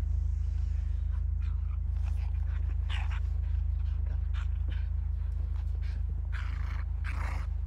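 Blue heeler (Australian cattle dog) panting in short, irregular noisy breaths while it plays in deep snow, over a steady low rumble.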